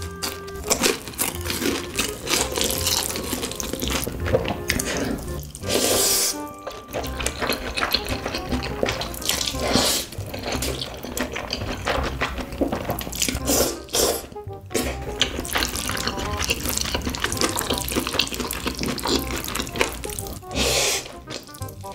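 Close-miked eating of buldak noodles with melted corn cheese: wet slurping of noodles and sticky chewing, over background music.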